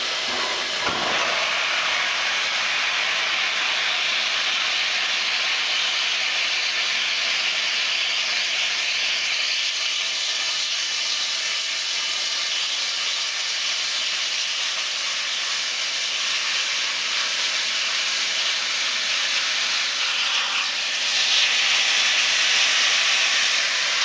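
Steam hissing steadily from the LNER Peppercorn A1 Pacific locomotive 60163 Tornado, with no exhaust beats; the hiss grows a little louder near the end.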